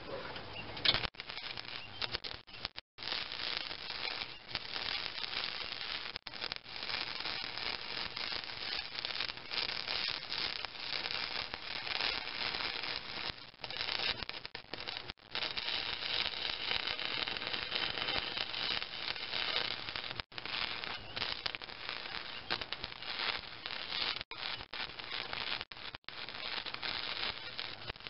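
Electric arc welder crackling and sizzling as it lays weld on the thin sheet-steel mower deck, turned down to a low heat setting so as not to burn through. The arc breaks off and restarts briefly several times.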